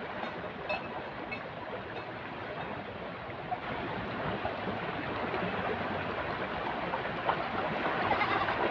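River water rushing steadily, growing a little louder near the end.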